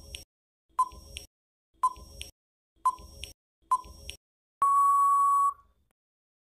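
Quiz countdown timer sound effect: short electronic beeps about once a second, five in all, then one longer steady beep lasting about a second as the time runs out.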